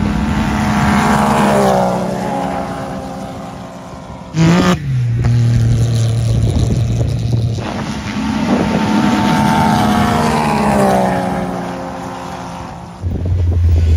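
Several turbocharged Can-Am Maverick X3 side-by-sides racing flat out across sand, their engines at high revs with the pitch falling as they pull away. About four seconds in, one engine comes in suddenly loud and close with a steady low note. The pitch falls again through the middle, and another engine comes in suddenly near the end.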